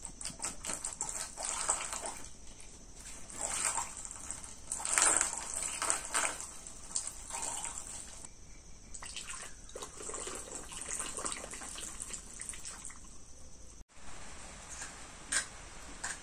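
Water poured from a plastic bottle splashing into a wide plastic funnel and running through it in uneven gushes. It stops abruptly near the end, leaving only a couple of faint clicks.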